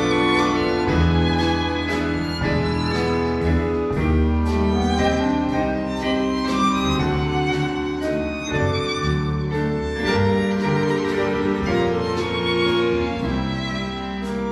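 Instrumental ensemble playing a song passage without voice, with a bowed-string melody over sustained bass notes.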